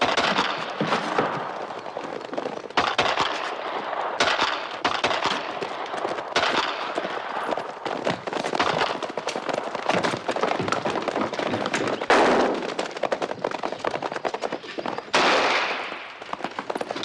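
Rapid gunfire in a film shootout: many shots in quick succession that overlap into a dense clatter. It breaks in suddenly, with fresh loud volleys every few seconds.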